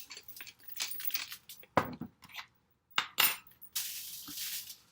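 Kitchen handling sounds: small clicks and clinks of utensils and dishes, with a sharper knock about two seconds in, then a steady dry rustling hiss over the last second.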